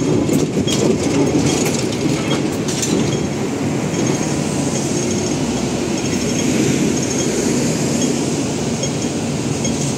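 A Hong Kong double-decker electric tram runs past at close range. Its wheels click sharply over the rail joints in the first few seconds, then settle into a steady rumble as it moves off along the track.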